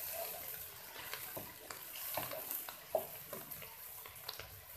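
Chopped onions sizzling in hot oil in a wok, stirred with a wooden spatula that scrapes and taps against the pan now and then, loudest about three seconds in.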